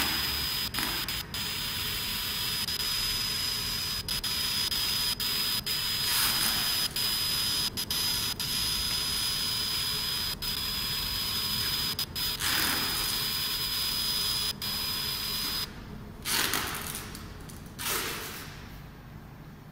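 A 100W CO2 laser marking machine at work on denim: a steady hiss with a thin high whine, cut by many very brief gaps. It stops about 16 seconds in.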